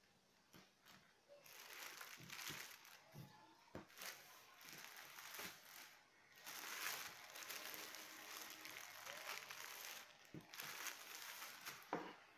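Thin plastic bag crinkling and rustling in long bursts as hands fold it around balls of dough, with a few light knocks, the sharpest near the end.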